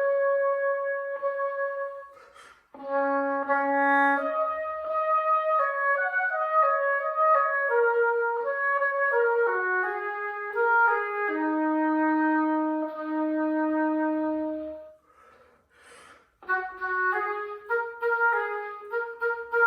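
Solo oboe playing an unaccompanied melody of connected notes, with a long low note held from about eleven to fifteen seconds in. The line breaks off briefly twice, about two and a half seconds in and again near fifteen seconds in.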